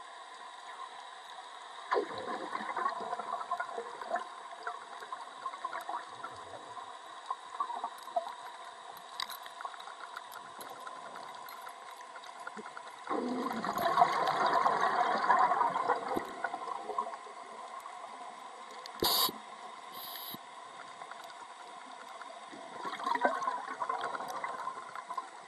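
Underwater bubbling and gurgling of gas escaping from the divers' rebreather and mask gear. It comes in bursts about 2 seconds in, a louder longer one around 13 to 16 seconds, and another near the end, over a steady faint crackle of tiny clicks, with one short sharp sound a little before 20 seconds.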